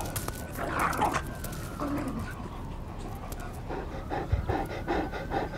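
Dogs panting hard while play-fighting, with quick, repeated breaths.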